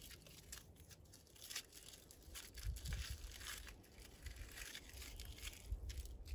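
A small wrapper crinkling and tearing as it is opened by hand, in irregular crackling rustles with a few soft handling thumps.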